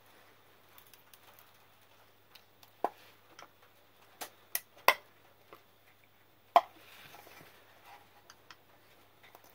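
Scattered sharp clicks and light scraping of a thin metal pick working around the rim of a round LED spotlight's lens, digging out the sealant so the lens can come off. The loudest clicks fall between about three and seven seconds in.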